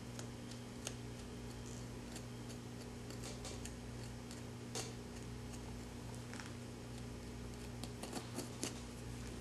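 Scattered small clicks and scrapes of a scalpel cutting and working the skin of a mule deer's lips and nose, with a cluster of clicks near the end, over a steady low hum.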